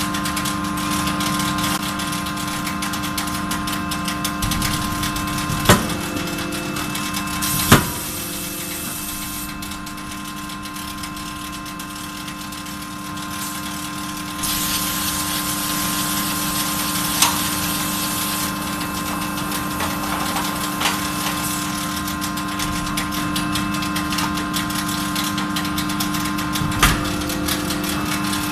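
Hydraulic closed-die forging hammer at work on hot steel: a few sharp, loud blows spread several seconds apart, over the steady hum of the machine's hydraulic power unit. Two stretches of hiss come in partway through.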